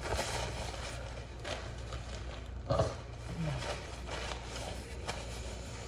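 Mouth sounds of someone eating spicy noodles: soft chewing and smacking, with a brief pitched hum of the voice about three seconds in.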